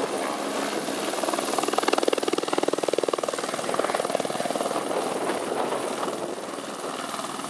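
AS 350 Squirrel helicopter, a single-turbine machine, hovering low and settling to land. A fast, even main-rotor chop swells about two seconds in, then eases as it comes down, with a steady high whine running throughout.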